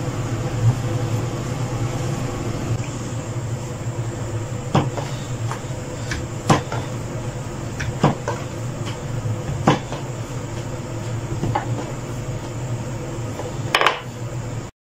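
Wooden rolling pin rolling dough on a wooden chopping board, with about half a dozen sharp knocks of wood on wood a second or two apart, over a steady low hum.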